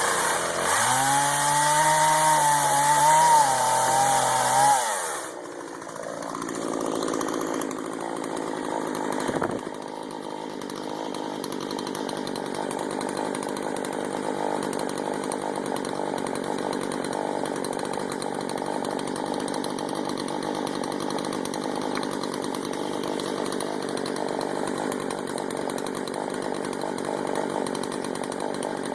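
Two-stroke chainsaw revved high for about five seconds, its pitch wavering, then dropping off the throttle and settling to a steady, lower running sound for the rest.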